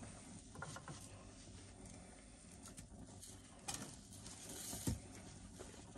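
Faint, irregular squishing and patting of hands mixing seasoned raw ground beef on a paper plate.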